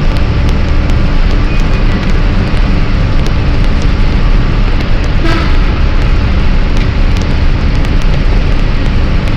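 Loud, steady rumble and hiss of a vehicle driving on the road through a tunnel.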